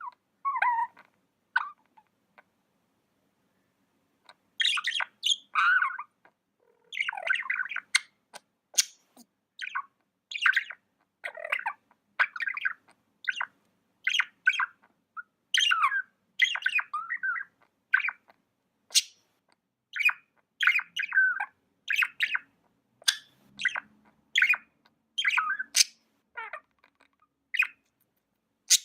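Pet budgies chirping: a busy run of short, warbling chirps and sharp squawky calls, with a brief pause near the start.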